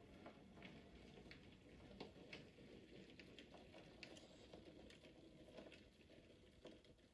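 Near silence: faint room tone with a few light, irregular clicks.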